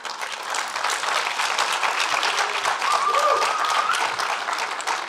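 Large audience applauding: dense, steady clapping, with a brief high cheer rising above it about three seconds in. The clapping tapers off near the end.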